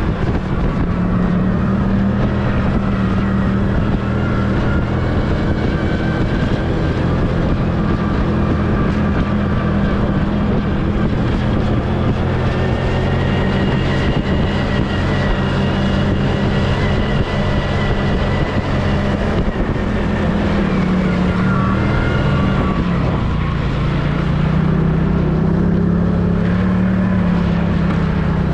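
Snowmobile engine running steadily under load as the machine climbs a snowy slope, heard from the rider's seat. The engine note sags about two-thirds of the way through, then picks up again.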